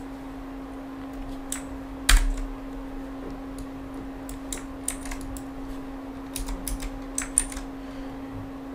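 Computer keyboard keystrokes: scattered single clicks, the loudest about two seconds in, and a quick run of clicks near the end. A steady low hum runs underneath.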